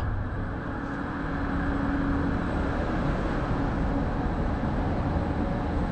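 Steady city street traffic noise: a continuous rumble of road vehicles, with a faint steady engine hum for a few seconds.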